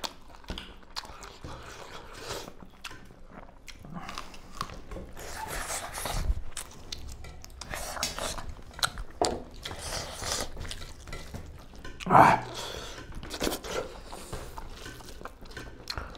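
Two people eating rice and spicy duck curry with their hands: chewing and biting, with small crunches and fingers working the food on metal plates. A brief louder sound comes about twelve seconds in.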